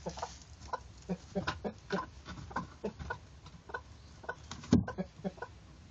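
Broody hen clucking softly in short, repeated low notes, several a second. One sharp knock about three-quarters of the way in.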